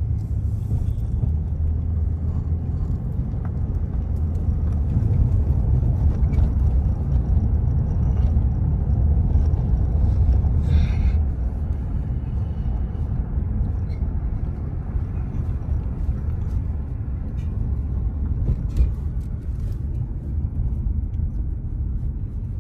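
Steady low rumble of a car driving, heard from inside the cabin as engine and tyre noise. A short rush of noise comes about halfway through, and a brief thump near the end.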